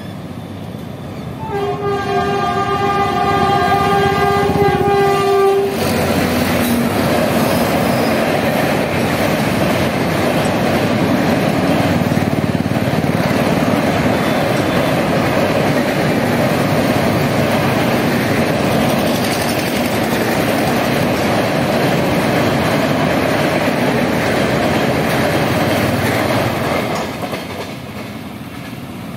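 A train horn gives one long steady blast of about four seconds. Then the Bikaner AC Duronto Express runs across the steel truss rail bridge with a steady rumble and clatter of wheels on rails for about twenty seconds, dying away near the end.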